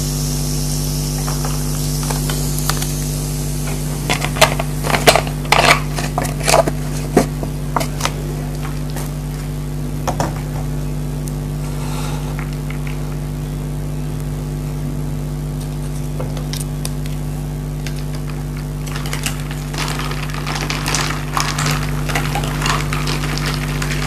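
Orange Fanta poured over ice cubes in a glass bowl, fizzing at the start, then a spell of sharp crackles and clinks as the ice settles and cracks in the soda about four to eight seconds in, with more clinking of ice near the end. A steady low hum lies under it all.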